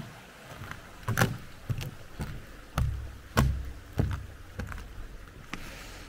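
Hiking-boot footsteps, about two a second, each a dull thump with a scuff, over a faint steady hiss.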